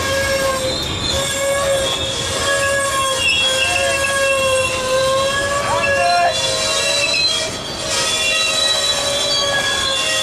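Wheels of a coal train's open-top gondola cars squealing on the rail as the cars roll past: several steady high-pitched squeals that waver slightly in pitch, over the rumble of the cars.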